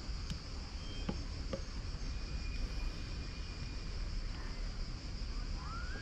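Insects singing in a steady, high-pitched chorus, over a low rumble and a few light clicks in the first couple of seconds.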